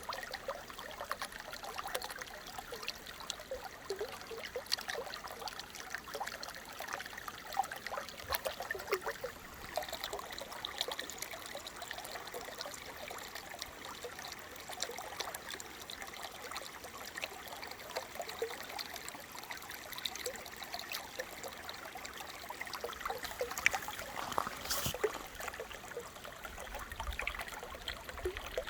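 Small brook trickling and babbling, a steady busy patter of small water sounds.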